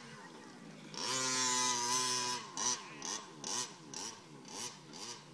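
Radio-controlled car's small two-stroke engine revving. About a second in it climbs to a high held pitch for over a second, then drops into a quick run of rising and falling blips, about two or three a second, as the throttle is worked on and off.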